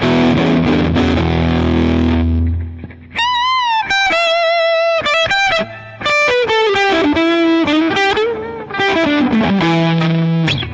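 Electric guitar played through a JOYO R-21 overdrive pedal on the bridge pickup, with the pedal's bass and treble turned all the way up: a chord left to ring for a couple of seconds, then a single-note lead line with bends and vibrato that works its way down in pitch.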